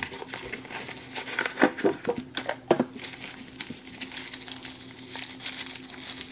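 A cardboard box is opened by hand and its contents pulled out, then a bubble-wrap bag is handled, with irregular crinkling and rustling and a few sharp clicks of cardboard and plastic.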